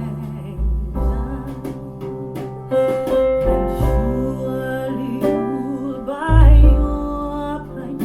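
A recorded song with singing, piano and guitar over deep held bass notes, played through Kef R11 Meta floorstanding loudspeakers and picked up by a microphone in the room.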